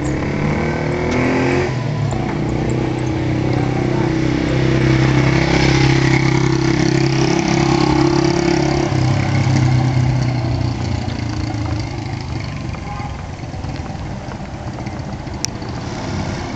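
Small motorcycle engine running close by at a steady pace, its pitch dropping about nine seconds in and the sound getting quieter after that. Wind and road noise from the moving camera run underneath.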